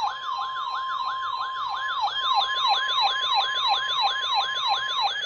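Emergency alert attention signal: a siren-like yelping tone sweeping rapidly up and down about four times a second. Under it runs a steady single tone near 1 kHz, which stops shortly before the end.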